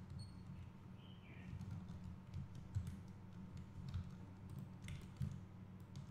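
Computer keyboard keys tapping at an irregular pace, with a few sharper clicks, over a steady low hum.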